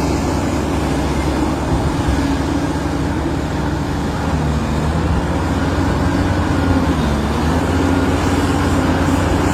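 Caterpillar 350 excavator's diesel engine running steadily, its pitch dipping briefly about four seconds in and again around seven seconds before recovering.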